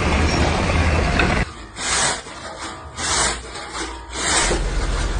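A dense steady rumbling noise that cuts off abruptly about a second and a half in, followed by hissing scraping strokes, about one a second, from a tool worked by hand on a hard surface.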